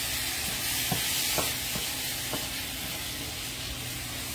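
Ground meat frying in a skillet, a steady sizzle with a few faint light ticks in the first couple of seconds.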